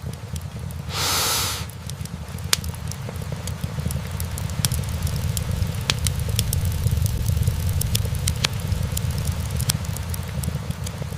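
Wood fire burning in a fireplace: a steady low rumble of flame with frequent sharp pops and snaps from the logs, and a short burst of hiss about a second in.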